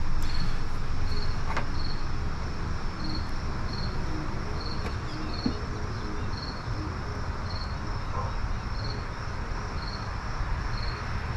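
A cricket chirping steadily, one short high chirp about every two-thirds of a second, over a steady background hiss and low rumble.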